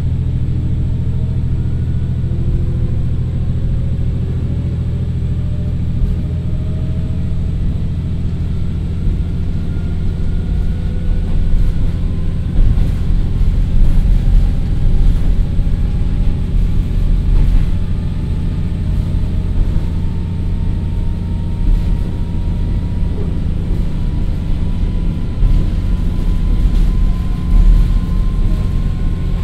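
Inside a JR Kyushu KiHa 40 diesel railcar accelerating after pulling away. Its Komatsu SA6D125HE-1 diesel engine with a TACN-22-1600 transmission runs with a steady low drone under a whine that slowly rises in pitch as speed builds. Occasional clicks are heard.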